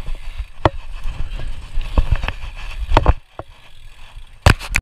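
Stunt scooter wheels rolling on a concrete skatepark bowl, a low rumble with scattered sharp clacks from the wheels and bars, easing off about three seconds in. Two loud sharp knocks near the end.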